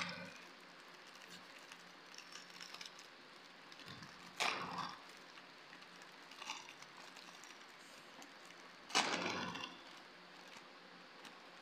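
Foil-lined plastic wrapper of a pack of cream sandwich biscuits crinkling as it is torn open and peeled back by hand. Three louder crinkles come at the start, about halfway, and about three-quarters of the way in, with lighter crackling between them.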